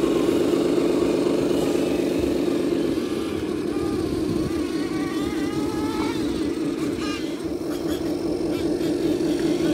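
1/14-scale radio-controlled tipper trucks driving up a rocky dirt slope, giving a steady, rough, engine-like drone. A faint whine rises and falls in the middle.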